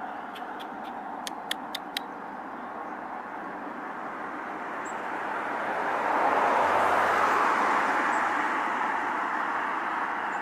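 A car passing on a nearby road: a steady tyre-and-engine hiss that builds, is loudest a little past the middle and then slowly fades.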